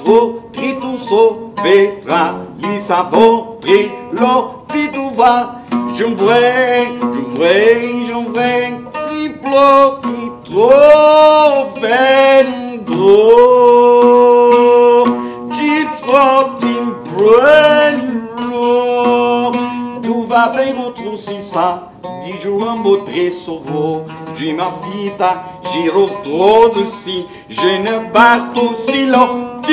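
A long-necked lute plucked in a quick, ornamented melody, with a voice singing long, gliding lines over it.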